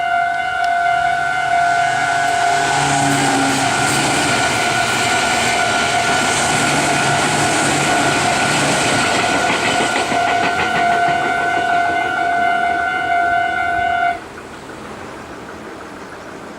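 Japanese level-crossing warning bells ring steadily while a Meitetsu electric train runs past over the crossing, its wheels clacking rapidly. The train noise swells and fades over several seconds, and the bells cut off suddenly about fourteen seconds in.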